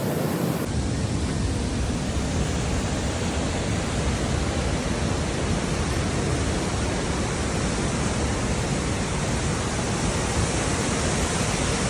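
Steady rushing roar of a large waterfall, the Krimml Falls, an even, unbroken noise that changes slightly in character under a second in.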